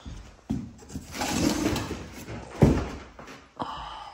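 Cardboard appliance box being moved and handled: scraping and rustling, with a sharp thump about two-thirds of the way through and a smaller knock near the end.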